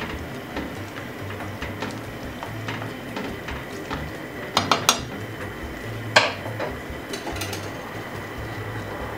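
Metal spoon clinking against a stainless steel soup pot: a few light scattered clinks, a quick run of three about four and a half seconds in, and a sharper single clink about a second and a half later.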